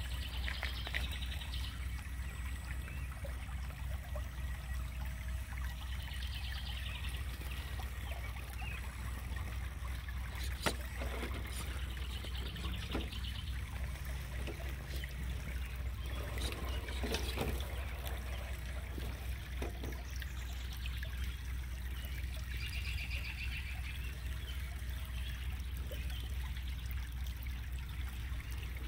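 Water trickling over a steady low rumble, with a few sharp knocks, one around the middle and one a little later.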